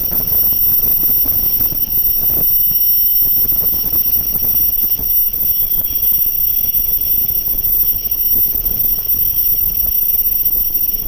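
CNC gemstone machine running steadily, its motor giving a constant high whine over a dense low rumble.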